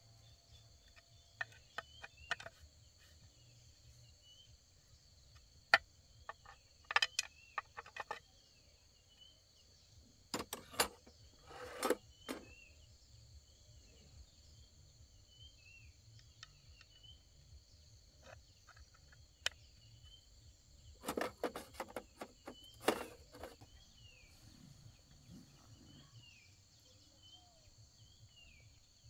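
Steady high buzzing of insects such as crickets, with short falling bird chirps, broken by scattered clusters of sharp clicks and knocks, the loudest near the middle and end.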